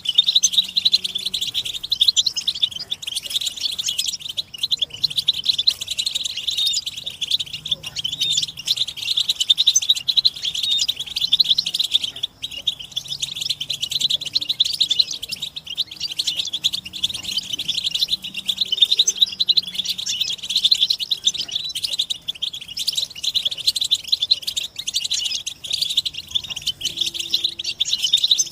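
A flock of European goldfinches twittering in a dense, unbroken stream of rapid high chirps and trills. These are their chattering mating and readiness calls.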